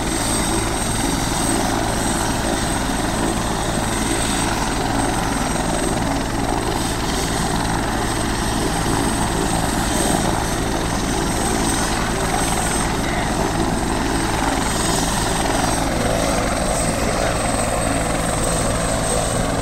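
Helicopter running on the ground ahead of take-off: turbine engines holding a steady high whine over the fast, even beat of the turning main rotor, unchanging in level.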